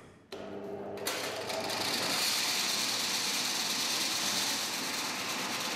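Electric game-bird plucking machine switched on. A low motor hum starts about a third of a second in, then a whirring hiss builds over the next second or so into a steady run as the rotary plucking drum comes up to speed.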